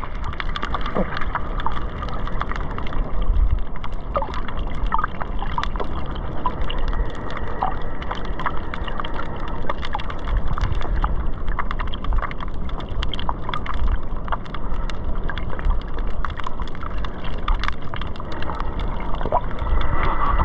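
Shallow reef water heard from under the surface: a steady low rumble of surging water, sprinkled with many sharp clicks and crackles.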